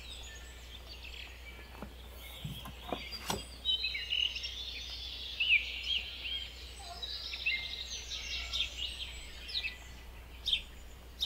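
Small garden songbirds chirping and singing, with quick rising and falling notes. A few brief soft scuffs come about two to three seconds in.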